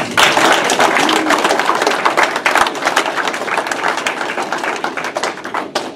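A small audience applauding: a dense run of hand claps that stops fairly sharply near the end.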